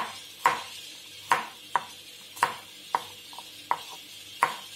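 Kitchen knife slicing garlic cloves on a wooden chopping board: a sharp knock of the blade on the board with each cut, about eight cuts at an uneven pace of roughly two a second.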